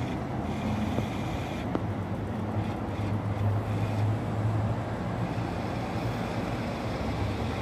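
Steady low hum of an idling vehicle engine with outdoor street noise.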